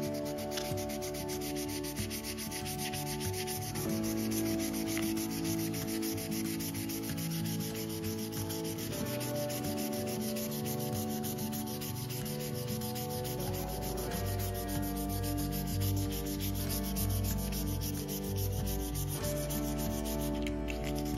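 Steel chef-knife blade being hand-sanded with an abrasive pad: quick, steady back-and-forth rubbing strokes. Background music plays underneath.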